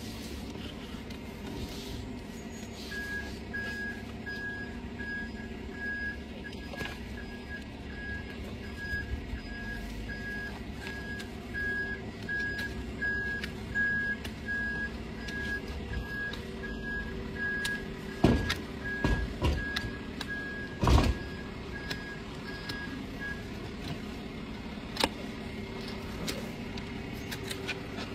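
A vehicle's reversing alarm beeping about twice a second over a steady engine rumble, the beeping stopping near the end. A few loud knocks come in quick succession late on.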